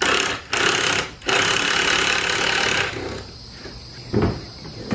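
Toy hauler's ceiling lift bed being forced along its tracks by hand: long scraping and rattling in three pushes over the first three seconds, then a thump about four seconds in.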